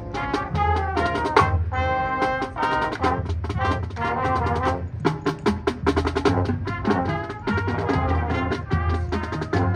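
Marching band playing: brass section sounding chords over a busy drum line.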